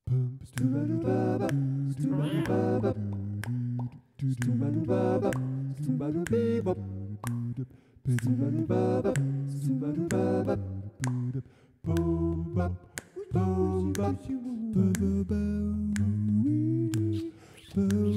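Film score of wordless vocal music: layered humming voices in phrases of about four seconds, with sharp clicks over them.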